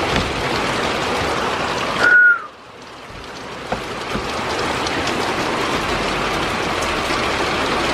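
Heavy thunderstorm rain falling in a steady hiss. About two seconds in, a short falling chirp sounds, the rain cuts off abruptly, and it then swells back up.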